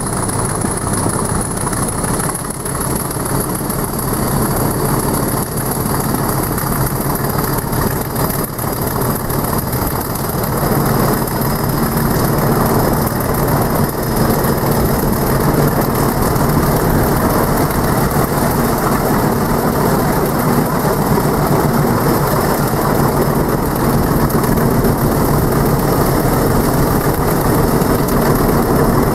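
English Electric Class 40 diesel locomotive D345 hauling the train, its 16-cylinder diesel engine working with a high turbocharger whistle that slowly rises in pitch, mixed with wheel and rail noise as heard from an open carriage window. The engine gets louder about ten seconds in.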